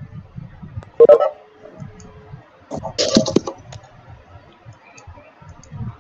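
Clicks and knocks picked up through an open video-call microphone: a sharp clatter about a second in, a louder one about three seconds in, and scattered small ticks over low bumping.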